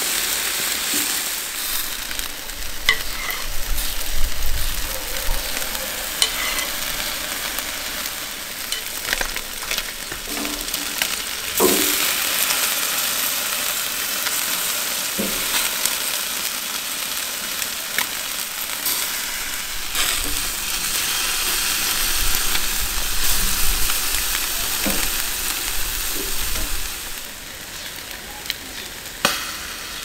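Chicken thighs sizzling on a hot barbecue grill grate: a steady crackling hiss, softening somewhat near the end. Occasional sharp metallic clicks from tongs turning the pieces on the grate.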